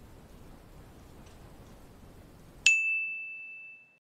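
Faint room noise, then about two and a half seconds in a single bright ding, an editing sound effect, that rings one clear tone and fades away over about a second.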